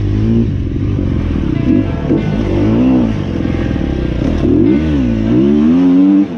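Sherco 250 SEF enduro motorcycle's single-cylinder four-stroke engine, breathing through an Akrapovic exhaust, revved up and down in repeated blips, ending in a longer rev held high before it drops back near the end.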